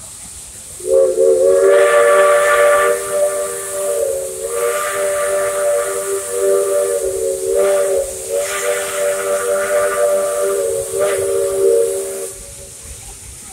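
Whistle of Dixiana, a Shay geared steam locomotive, blowing one long chime-like blast of several tones together. It slides up into pitch about a second in, dips briefly a few times, and cuts off about a second before the end.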